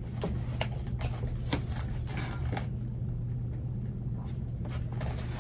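Hands settling an orchid into a plastic pot of bark mix, LECA and packing peanuts: scattered light rustles and clicks of the media and plastic pot, a few sharper ones about a second and a half and two and a half seconds in, over a steady low hum.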